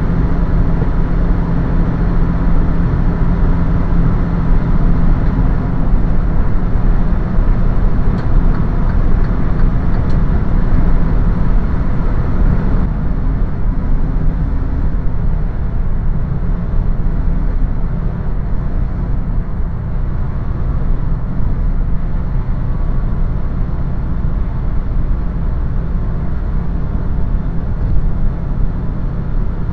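Semi truck's diesel engine and road noise heard from inside the cab at highway speed: a steady low drone with rumble. Partway through, the higher part of the noise drops away and it becomes a little quieter.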